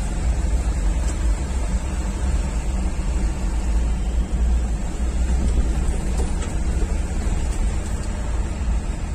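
Steady low rumble of a truck's engine and tyres, heard from inside the cab while driving at an even speed.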